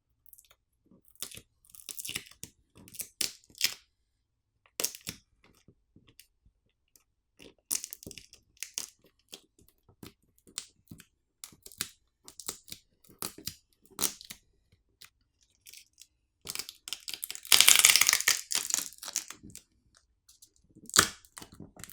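Battery being pried and pulled from a smartphone frame by its pull pouch: scattered small clicks and scrapes of plastic, then a louder ripping of battery adhesive lasting about a second and a half near the end.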